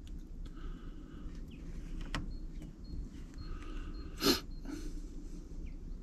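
Quiet outdoor background with a few faint clicks and one short breathy noise about four seconds in; the tractor engine is not yet running.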